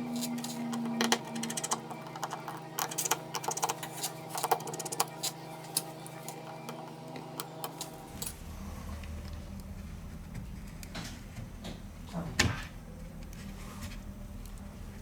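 Small clicks and taps of tools and parts being handled while a smartphone is taken apart, over a steady hum. About eight seconds in, the background changes to a low rumble and the taps grow sparser.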